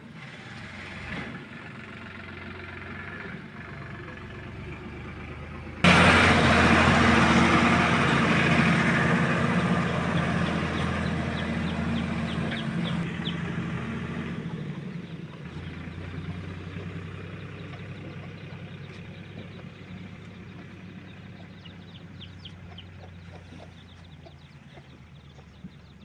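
A motor vehicle's engine running, cutting in loud about six seconds in with a steady low hum, then slowly fading away over the following twenty seconds.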